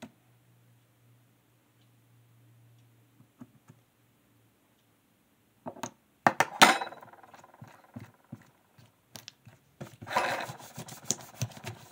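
Handling a lump of slime on a tabletop with a metal spoon and hands. Several seconds of near quiet are followed by a sharp clink with a short ring, then scattered taps and rubbing as the slime is pressed and rolled.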